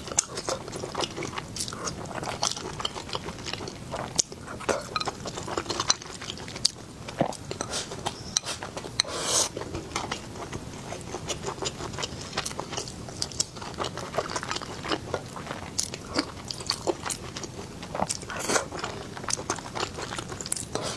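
Close-up biting and chewing of crisp food, with irregular crunches and wet mouth clicks. A louder crunch comes about nine seconds in and another near the end.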